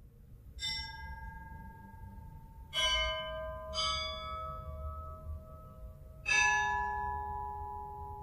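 Bells struck four times, slowly and unevenly spaced, each at a different pitch with the last the lowest, every strike left to ring on and fade; a low rumble runs underneath.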